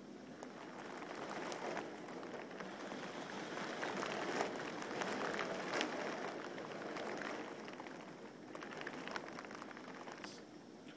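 Rain falling hard in a thunderstorm: a steady hiss with many sharp ticks of individual drops. It builds to its loudest near the middle and eases toward the end.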